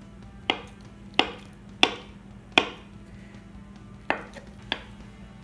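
Kitchen knife chopping down through firm tofu onto a bamboo cutting board while dicing it: six sharp knocks, four about two-thirds of a second apart, then after a pause two more.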